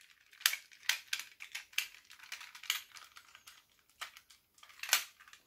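Hard plastic parts of a 1980s G1 Transformers Soundwave toy clicking and knocking together as it is twisted and folded into its cassette-player mode: a run of irregular sharp clicks, loudest about half a second in, near one second and near five seconds.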